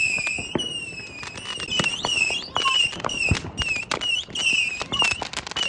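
Fireworks going off: many sharp pops and crackles over a run of repeated high whistling tones, each about half a second long.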